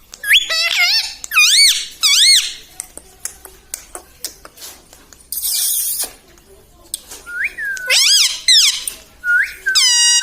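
Pet parrot making squeaky whistled calls, each swooping up and down in pitch, in a cluster near the start and again in the last few seconds, with a short rasping burst about halfway through.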